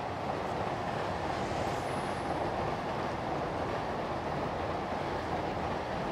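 Steady background noise with no separate events in it.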